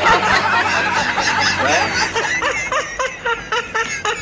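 Two men laughing hard in a fast run of short laughs that tails off near the end.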